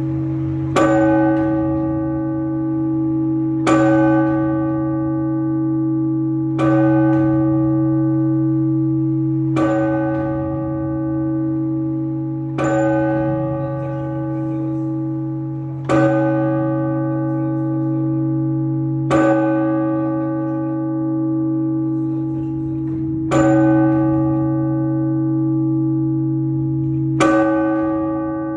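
A single large Orthodox church bell tolled in slow, measured strokes, rung to call worshippers to the service (blagovest). There are nine strikes about three seconds apart, a little further apart near the end. Each rings on with a deep hum into the next.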